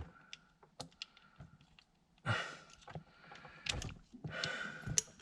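Hands handling the plastic HVAC temperature control parts just after the knob broke: a few sharp clicks in the first second and a half, then short scraping and rustling handling sounds.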